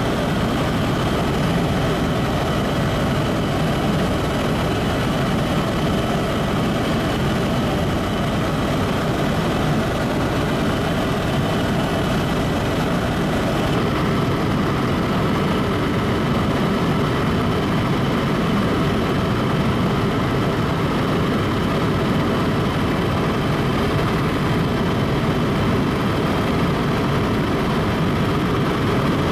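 Helicopter in flight: the steady drone of its engine and rotors.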